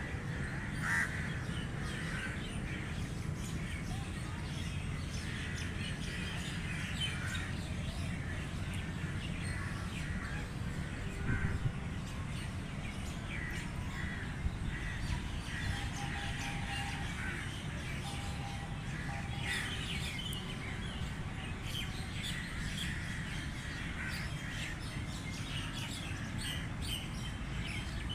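Crows cawing again and again, with other birds chirping, over a steady low background rumble.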